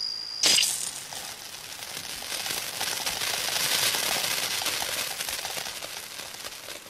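A bell cricket's steady high chirping cuts off with a sharp click about half a second in. A crackling hiss then swells up and slowly fades away.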